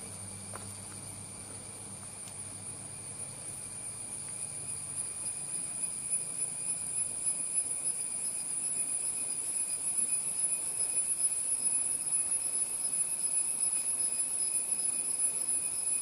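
A steady, high-pitched insect drone that grows louder in the second half. Under it, a low hum fades out about halfway through.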